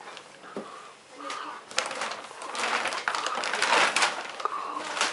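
Paper gift bags and wrapping crinkling and rustling as presents are rummaged through. The rustling is light at first and grows dense and crackly about two seconds in.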